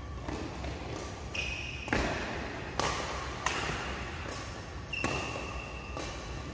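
Badminton doubles rally: rackets strike the shuttlecock about five times with sharp cracks, roughly once a second, and sneakers squeak briefly on the court floor twice.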